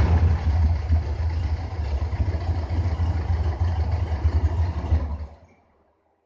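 An engine idling with a low, uneven rumble, then switched off, cutting out suddenly about five seconds in.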